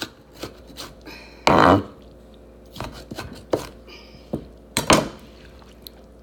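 Chef's knife knocking and scraping on a wooden cutting board as finely chopped green pepper is gathered and scooped up, in irregular knocks with a louder half-second scrape about a second and a half in and another short one near the end.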